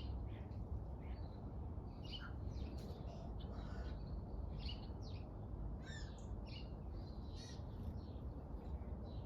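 Birds calling in many short, quick chirps and notes, scattered irregularly over a steady low rumble of background noise.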